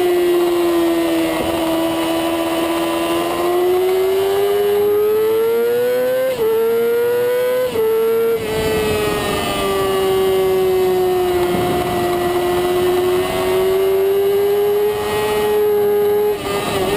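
Middleweight supersport race motorcycle engine at high revs under acceleration. Its pitch rises through second gear and drops briefly at two quick upshifts about six and eight seconds in, then holds fairly steady, with a short dip near the end.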